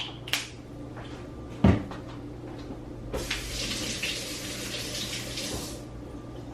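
A couple of light clicks and a single clunk, then water running for about three seconds.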